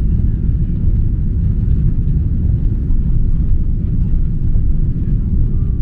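Jet airliner's engines and wheels heard from inside the passenger cabin while it moves on the ground: a steady low rumble.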